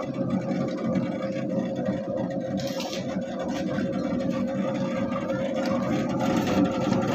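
Home-built 180-watt dough mixer running at its fast speed, its hook kneading a lump of dough round a stainless steel bowl: a steady motor hum with a constant tone.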